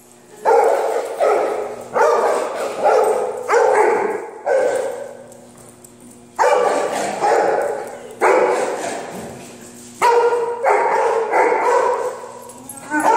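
A dog barking over and over: a run of about seven barks, a short pause about five seconds in, then another run of about eight barks.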